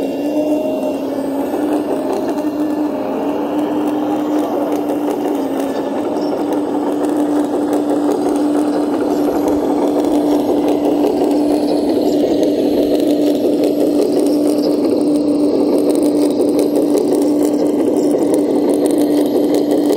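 Small electric drive of a radio-controlled model machine running steadily: a constant whine over a rattling clatter.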